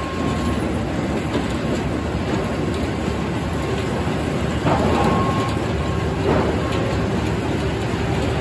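Circular sawmill running and sawing poplar logs: a steady, dense machine noise with a couple of louder knocks about five and six seconds in.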